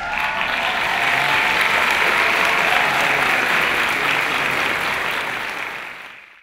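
Opera house audience applauding: dense, steady clapping that fades out near the end.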